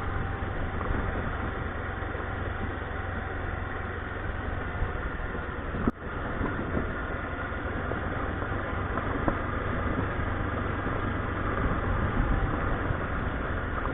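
Motorcycle engine running steadily at an even pace while riding along a dirt road, with a constant low hum and road and wind noise; the sound breaks off for an instant about six seconds in.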